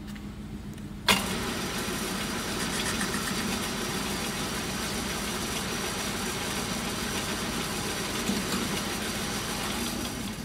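Centre lathe spindle engaged with a clunk about a second in, after which the chuck and headstock gearing run with a steady mechanical whirr. The noise drops away near the end as the spindle is stopped.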